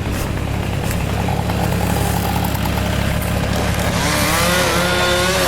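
Engine drone of idling machinery, then about four seconds in a chainsaw revs up and holds at a high, steady pitch.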